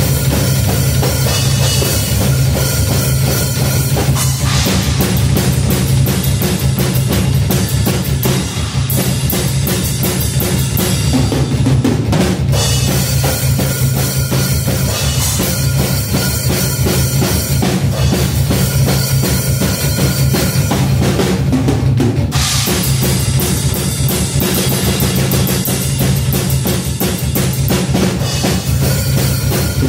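Drum kit played continuously with a fast double-bass-pedal kick pattern under snare and cymbals. The kick is a BOSS DR-220A drum-machine bass drum sound fired by a piezo trigger on the kick drum, heavy in the low end and cutting through. There are short breaks in the pattern about twelve and twenty-two seconds in.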